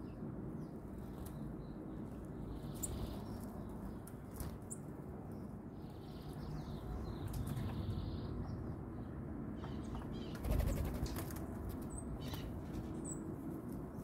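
Small songbirds, sayaca tanagers, flapping and fluttering at a banana feeder, with the loudest flurry of wingbeats about ten seconds in and a couple of faint high chirps near the end, over a steady low background noise.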